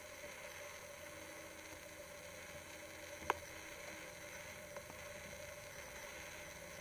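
Faint steady hiss with a low hum underneath, broken by one sharp click about three seconds in and a softer tick shortly after.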